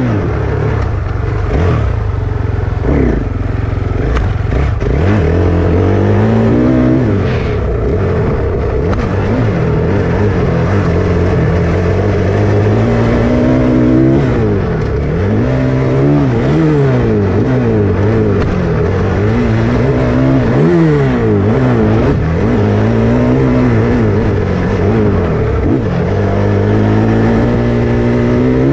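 Motocross dirt bike engine revving, its pitch climbing and dropping over and over as the throttle is opened and closed.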